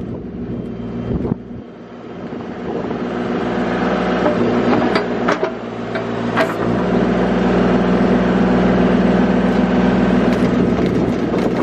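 Bobcat E35 mini excavator's diesel engine running and growing louder as it works under hydraulic load while the bucket digs up sod. A few sharp metal clanks from the bucket stand out.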